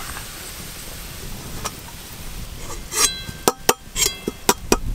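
Sliced onions frying in hot oil in a metal wok, a steady sizzle, then from about three seconds in a slotted metal ladle clinks and rings several times against the wok and a steel plate as the golden-brown fried onions (birista) are lifted out, done.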